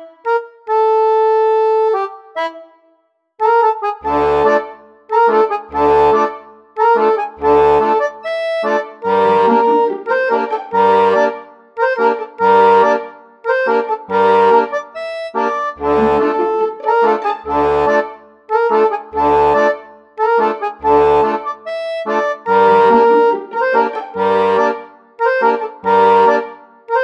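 Background music with a steady bass beat. A held chord opens, a short break follows, and the beat comes in about four seconds in.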